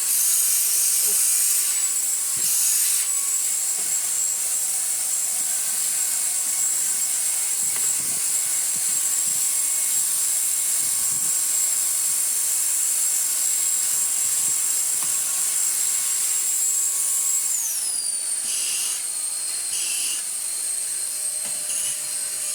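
Numatic Quick NQ100 cordless bagged stick vacuum running: a steady high motor whine over an airflow hiss, which winds down about eighteen seconds in as it is switched off. A couple of short noises follow after it stops.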